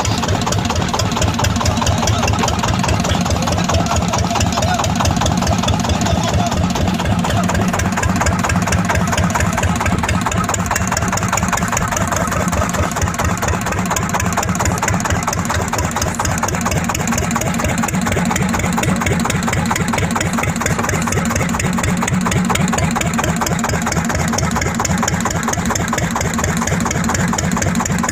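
Boat engine running steadily with a fast, even chugging pulse.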